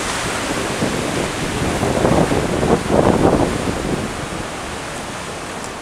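Sea surf breaking against shore rocks, a steady rushing wash with wind buffeting the microphone. A wave breaks louder about two seconds in.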